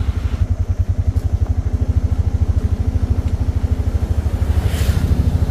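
Auto-rickshaw's single-cylinder engine idling with a steady, rapid putter.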